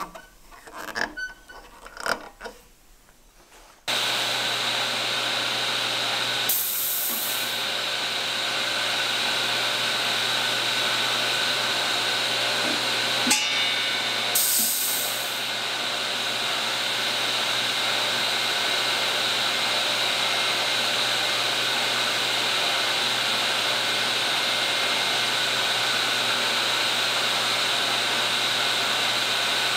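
A few light knocks of hand handling on the machine, then about four seconds in the table saw under a pneumatic tenon cutter starts and runs steadily with a low hum. Twice, a short burst of air hiss comes from the tenon cutter's pneumatic cylinders exhausting.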